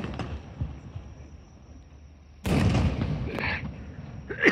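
Fireworks going off: a sharp crack at the start, then a loud boom about two and a half seconds in whose rumble echoes and fades over a second and a half. Another loud bang comes at the very end.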